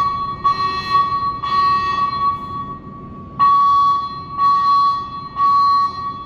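Building fire alarm speaker strobes sounding a loud, steady tone in groups of three long beeps, with a short pause between groups. This is the temporal-three evacuation signal.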